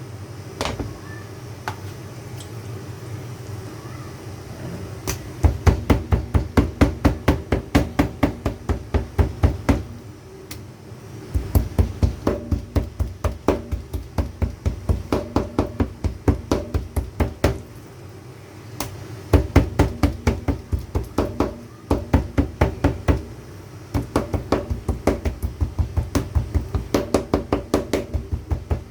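Rapid, evenly spaced thuds of food being chopped or pounded on a chopping board, about four strikes a second, in runs of several seconds with short pauses between them.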